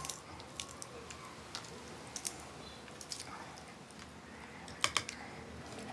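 Cooked shellfish shell being cracked and peeled by hand: a scatter of short, sharp cracks and clicks, the loudest pair near the end.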